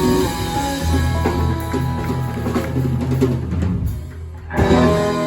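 Live band playing, with drum kit and bass guitar carrying the low end; a loud full-band hit comes near the end and then rings off.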